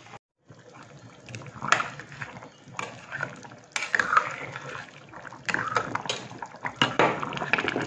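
Braising liquid bubbling in a saucepan over high heat while a ladle stirs it, knocking and scraping against the pot several times.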